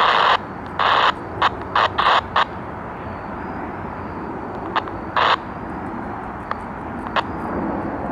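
Scanner radio hiss cutting off sharply, then short bursts of static as the squelch briefly reopens: about six in the first two and a half seconds and a few more later. A low rumble slowly builds near the end.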